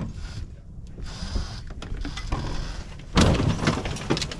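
A side-by-side UTV lying on its side is rolled back over and drops onto its wheels about three seconds in, with a loud crashing thud that rattles on for about a second.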